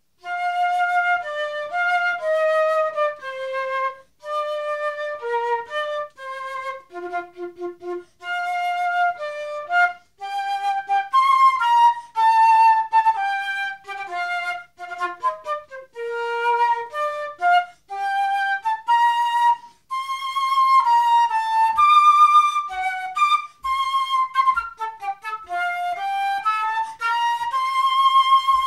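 Unaccompanied concert flute playing a march tune, a graded exam piece, in short separate notes moving mostly in the middle and upper register, with brief breaks for breath every few seconds.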